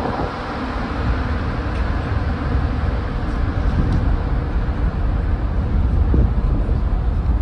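Steady low rumble and rushing noise on the open deck of a car ferry leaving port. Its engines and propellers are churning the water into a wake, mixed with wind on the microphone.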